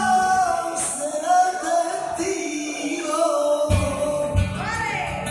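Male flamenco singer singing fandangos in long, bending, ornamented lines, accompanied by a flamenco guitar, whose strumming grows heavier a little over halfway through.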